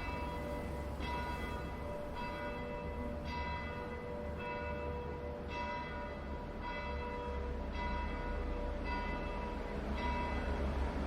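Bells ringing in a steady peal, about one strike a second, each ringing on and changing pitch from strike to strike, over a low steady rumble.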